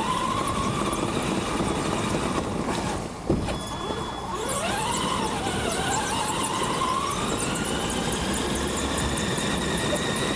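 Electric motor of an RC car whining as it drives, its pitch rising and falling with the throttle, over tyre and drivetrain noise. A sharp knock about three seconds in.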